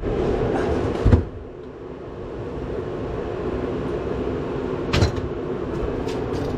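A steady hum with two sharp knocks, one about a second in and one about five seconds in.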